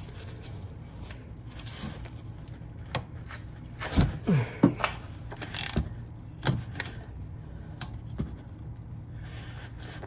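A ratchet with a 13 mm socket working a rear brake caliper bolt loose: scattered metallic clicks and clanks, the loudest cluster about four to five seconds in, over a steady low hum.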